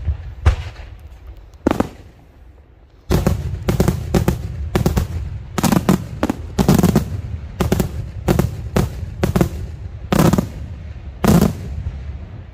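Daytime aerial fireworks shells bursting with sharp bangs. A few single reports come first, then about three seconds in a rapid volley of bangs follows, lasting some eight seconds before it tails off near the end.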